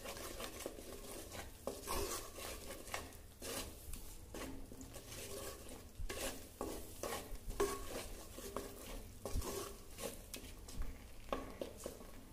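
Wooden spatula stirring and scraping a thick ground onion and dry-coconut masala paste around a clay pot as it fries in hot oil, with a faint sizzle. The strokes come irregularly, several a second, with soft knocks against the pot.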